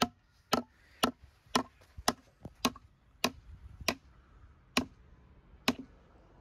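Hammer driving a nail into a formwork board: about ten sharp blows, roughly two a second, coming further apart toward the end, each with a short ring.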